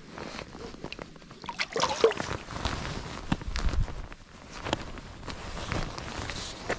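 Shallow water sloshing and splashing as a small pike is released at the bank's edge. Irregular rustles, knocks and steps follow on the concrete bank.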